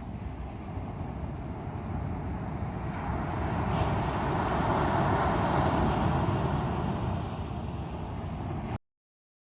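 Strong sea waves breaking on the shore: a steady rushing wash that swells as a wave breaks about three seconds in, holds, and eases off. The sound cuts off abruptly near the end into silence.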